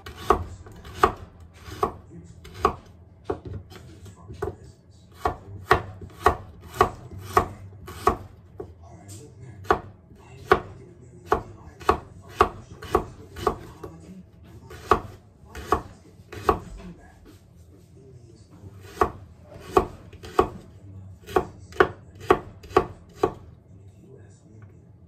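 A knife slicing carrots on a wooden cutting board: a steady run of sharp knocks of the blade on the board, about two a second, with a short pause about two-thirds of the way through before the slicing picks up again.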